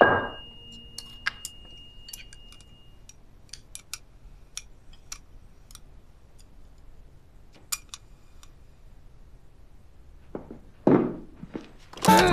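Light, scattered clicks and taps of eating utensils against a bowl as someone eats quietly. Two short, louder noises come about ten and a half seconds in, and music starts near the end.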